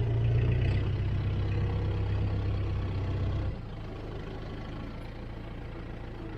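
Small petrol engine of a portable bandsaw mill idling with a steady low hum. About halfway through it drops away abruptly to a fainter low running sound.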